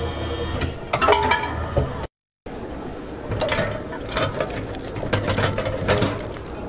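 Candy vending machine's mechanism running with a steady hum and a few clicks as its bin of lollipops is churned. After a short break come irregular knocks and clatter as a hand pulls plastic-wrapped lollipops out of the dispensing slot.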